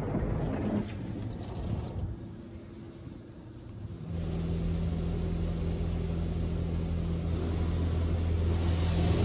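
WashWorld Razor touchless car wash heard from inside the car, water spraying on the bodywork. About four seconds in, a steady low machine hum starts up and holds, and the hiss of spray grows louder near the end.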